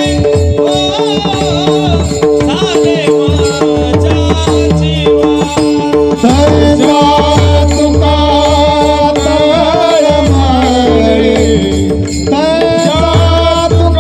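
Devotional kirtan music: a harmonium holding steady notes, a hand drum beating a regular rhythm, and a singer's voice gliding through a melody above them.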